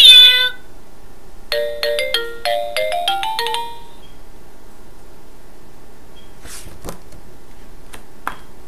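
A sound book's electronic sound module playing a short beeping jingle of quick stepped tones that climb to a held final note. Just before it, a loud recorded call from the module cuts off, and later come soft rustles and clicks of the book's page being turned.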